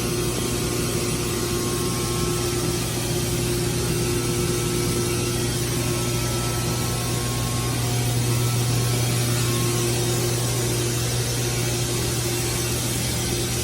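Steady low mechanical hum with an even hiss and a fainter higher tone, unchanging throughout.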